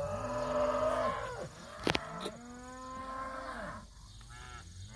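A crowded mob of beef cattle bawling: three long moos one after another, the last one fainter. The cattle are packed tight in a narrow lane and not real crazy about it. A sharp click sounds about two seconds in.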